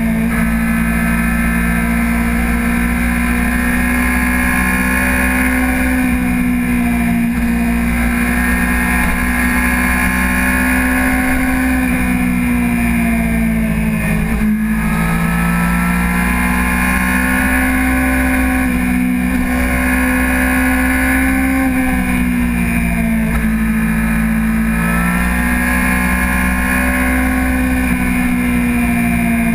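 Honda CBR600RR's inline-four engine running at riding speed. Its pitch eases down and climbs again several times as the throttle is rolled off and back on through the bends, most clearly about halfway through.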